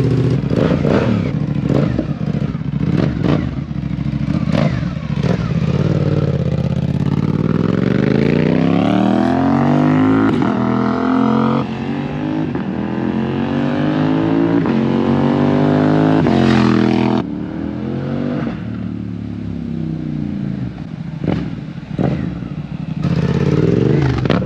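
Suzuki GSX-8S's 776 cc parallel-twin engine through a full M4 exhaust. For the first several seconds it runs with short, sharp throttle blips, then it accelerates with the pitch climbing in two long sweeps. After about seventeen seconds it is quieter, with a few more blips.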